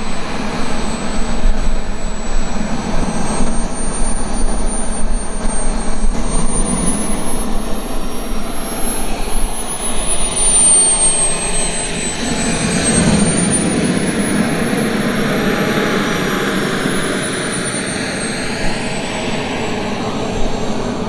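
Radio-controlled model jet's small turbine engine in flight: a loud rushing exhaust noise under a high whine that rises and falls in pitch twice.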